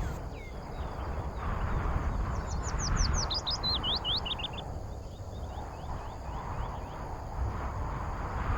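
A small songbird singing a quick run of short, high whistled notes, with fainter notes following, over a steady rushing background.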